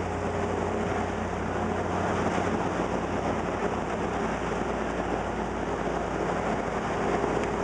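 Steady rushing of churning boat-wake water, with wind on the microphone and a low engine drone under it that weakens about two and a half seconds in.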